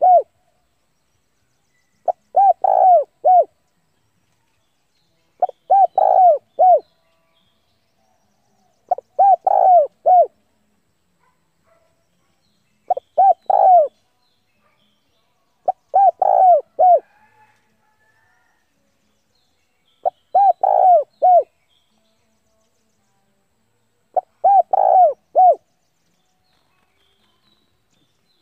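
Spotted dove cooing its short phrase of three to four notes, repeated every three to four seconds. It is the challenging call of a decoy dove, used to lure wild doves in to fight.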